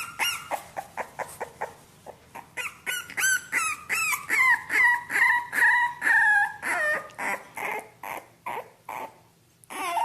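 Young bulldog puppy squealing and whining in a fast string of short high-pitched cries, several a second, drawing out into longer cries about halfway through, then thinning out with a brief lull near the end.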